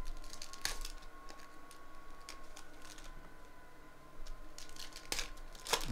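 Trading card packs being handled on a table: scattered light clicks, taps and rustles, with a sharper knock near the end.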